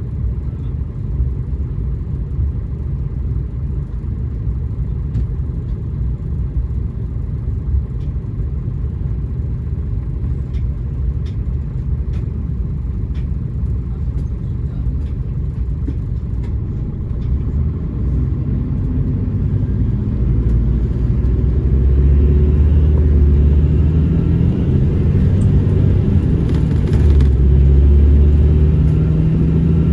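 Scania Irizar Intercentury 12.32 bus's diesel engine heard from inside the cabin, idling steadily while the bus stands still, then growing louder about 18 seconds in as the bus pulls away and accelerates.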